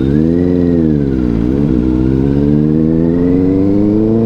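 Benelli 600i superbike's inline-four engine pulling away with a passenger aboard. The engine note rises, eases off about a second and a half in, then climbs steadily again.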